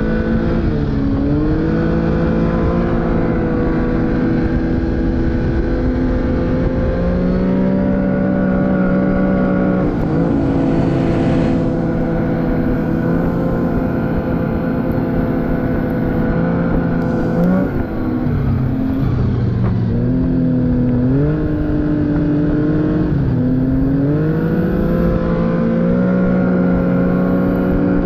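Arctic Cat snowmobile engine running under way, holding a steady pitch for long stretches. The pitch drops and climbs back several times in the second half as the throttle is eased off and opened again.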